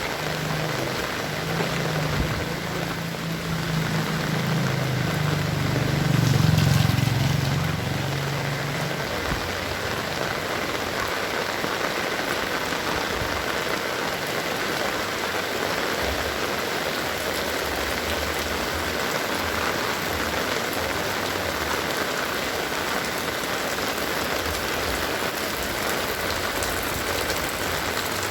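Heavy rain pouring down steadily in a dense, even hiss. In the first several seconds a low rumble swells and fades, loudest about six seconds in.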